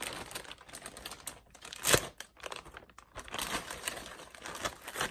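Freshly made glossy slime being stretched and squished by hand, giving an irregular sticky crackling with small clicks and pops, and one sharper snap about two seconds in.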